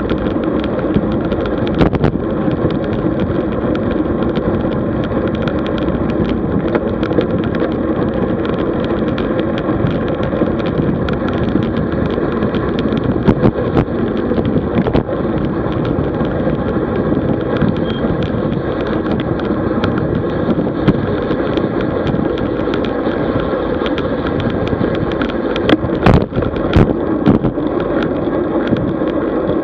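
Steady rush of wind and road noise from a road bicycle in motion, with a few sharp knocks and rattles from bumps, a cluster of them near the end.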